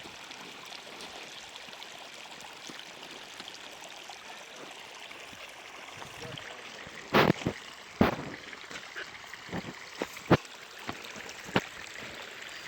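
Water running steadily, like a small stream trickling. In the second half come a handful of sudden, loud hits, the loudest about seven and eight seconds in.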